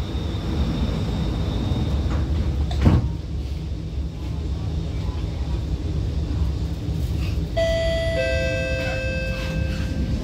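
Alstom Movia R151 metro car standing at the platform with a steady low rumble. Its doors shut with a single knock about three seconds in. Later the traction motors start with a steady multi-tone electric whine, a second tone joining a moment after, as the train begins to pull away.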